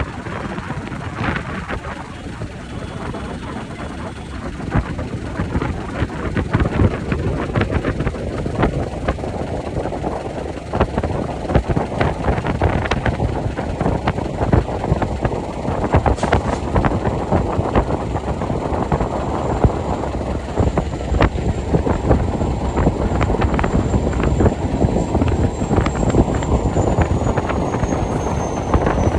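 Train running over a rail bridge: a steady rumble with rapid clatter of wheels on rails, growing louder about five seconds in. A faint high whine falls slightly near the end.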